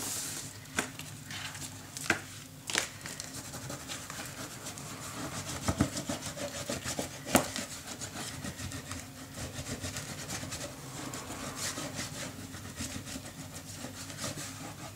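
Hands rubbing and pressing freshly glued paper down onto an album page: a dry, steady rubbing of paper, with a few sharp taps scattered through it.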